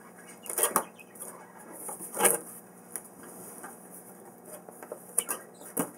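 Cardboard box and packaging being handled as it is opened: a few short rustles and knocks, the loudest about two seconds in.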